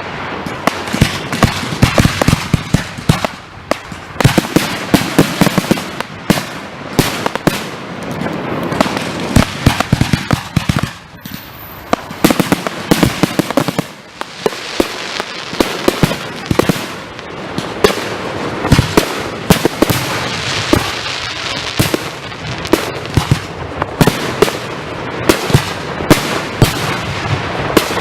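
Consumer fireworks in a finale barrage: rapid, overlapping bangs over continuous crackling, with short lulls about eleven and fourteen seconds in.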